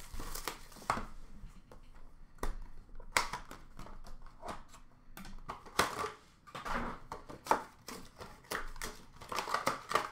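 Trading-card box packaging being opened and handled: irregular crinkling and rustling of cardboard and wrapper, with scattered sharp clicks and taps.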